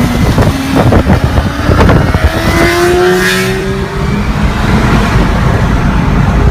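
Yamaha sport bike's engine revving hard as it accelerates away, its pitch rising steadily from about two seconds in and then fading as it pulls ahead. The sound is heard from a following car, with heavy low wind rumble on the microphone.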